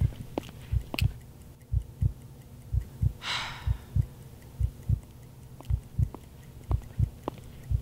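A heartbeat, a low double thump repeating about once a second, with one short breathy hiss about three seconds in.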